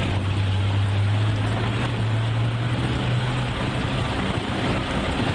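A vehicle's engine and road noise heard from inside the cabin while driving. The low engine drone rises slightly in pitch over the first three seconds or so, then sinks back into the steady road noise.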